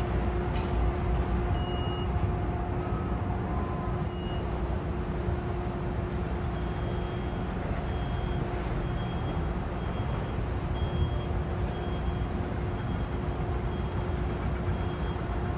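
Steady low rumble of heavy vehicle engines with a faint steady hum. From about halfway through, a reversing alarm beeps about once a second.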